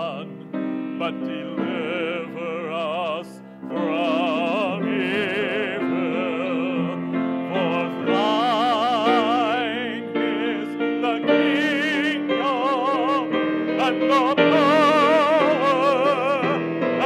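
A man singing a scripture passage solo in a classical, operatic style with wide vibrato, over held keyboard accompaniment, getting louder toward the end.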